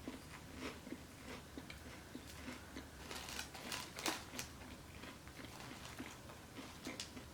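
A person chewing crunchy fried food close to the microphone: irregular crisp crunches, louder a few seconds in.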